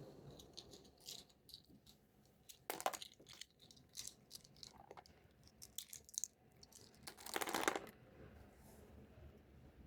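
Small plastic toy pieces and packaging being handled close up: scattered light clicks and taps, with a louder crinkling rustle about seven seconds in.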